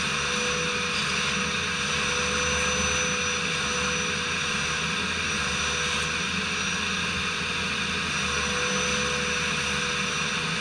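Vacuum cleaner running steadily with a constant whine and rushing air as its hose nozzle sucks debris out of the bolt holes along a rocker panel.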